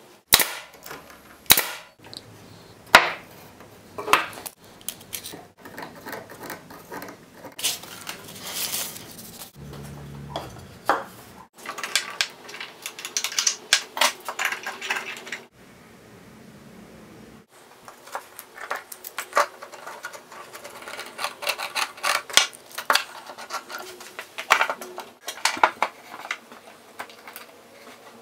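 Wooden parts and hand tools being handled during table assembly: a string of sharp knocks and clicks of wood on wood, with a short scraping stretch partway through.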